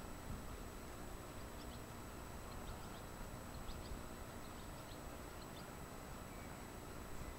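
Faint, short, high bird chirps, a handful scattered through the middle, over a steady outdoor background hiss.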